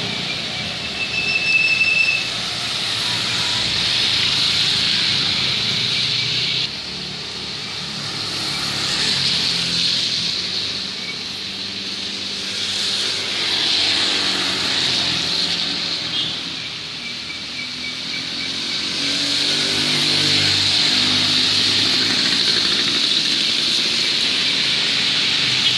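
Steady rain falling on a wet road, with motorbikes and cars passing and their tyres hissing through the water; the sound swells several times as vehicles go by. There is a brief high squeal near the start.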